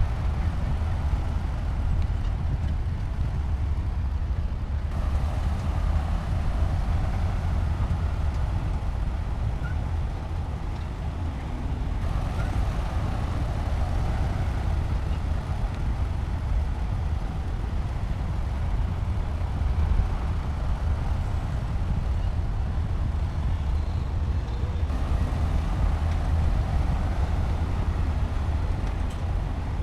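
Heavy diesel engine of construction machinery running with a steady, deep drone. A higher-pitched layer of engine or track noise comes in and drops out a few times.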